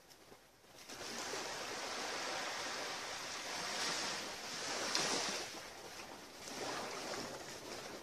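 Small waves lapping and washing onto a shore. The sound fades in about a second in, and the wash swells around the middle and again near the end.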